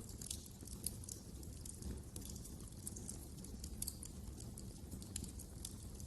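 Wood fire crackling in a fireplace: frequent small sharp pops and snaps at irregular intervals over a low steady rumble of the flames.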